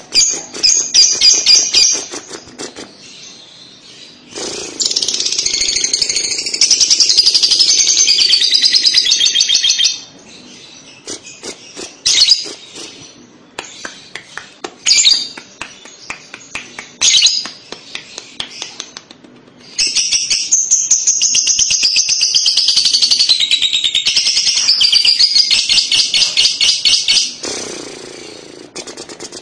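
Fischer's lovebird ngekek: long runs of rapid, high chattering trills, two of them lasting several seconds each, with short bursts of chirps between.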